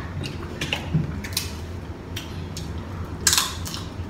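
Seafood shells being peeled and cracked by hand, along with mouth eating sounds: a string of short, sharp crackles and smacks, the loudest about a second and a half in and again just after three seconds.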